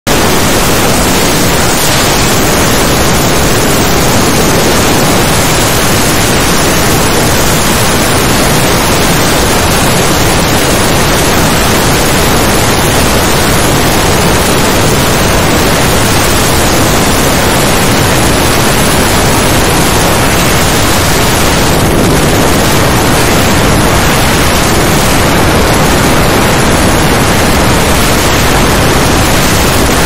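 Loud, steady rushing noise with no pitch or rhythm, the sound of an aircraft in flight recording aerial footage.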